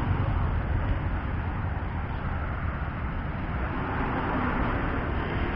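Steady outdoor noise of road traffic, a low rumble with a broad rush over it and no distinct events.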